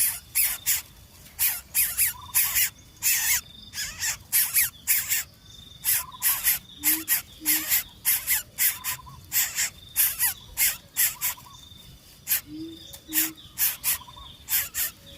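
Birds chirping: short, raspy, high chirps repeated irregularly, about two to three a second, over a steady high insect whine. Twice, a soft low two-note hoot.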